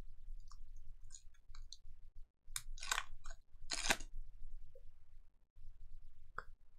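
Crinkling and rustling of a foil trading-card pack wrapper being handled and torn open, with two louder crackles near the middle and a few light ticks before them.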